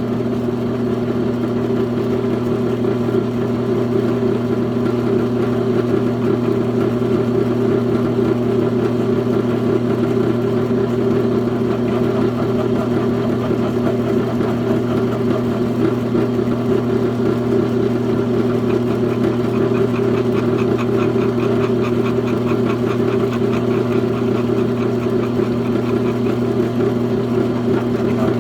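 Electric machine-tool motor running steadily with a constant hum while a bit drills into a hard broken steel bolt in a chainsaw's pull-cord housing.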